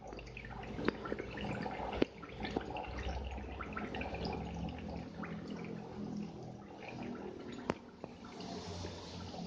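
Aquarium water trickling and dripping, with scattered small drops and a few sharper ones, over a low steady hum.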